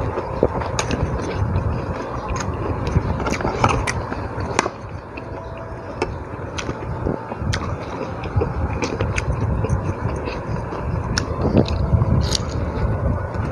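A person eating rice and fried tofu by hand, with scattered clicks and scrapes of fingers and a spoon on a plate and a bite near the end, over a steady low background rumble.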